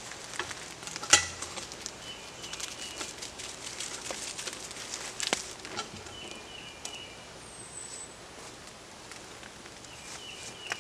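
Scattered knocks, clicks and leaf rustling as a log is levered and rolled with a cant hook on dry leaf-covered ground, with one sharp knock about a second in. A bird repeats a short high call about every four seconds.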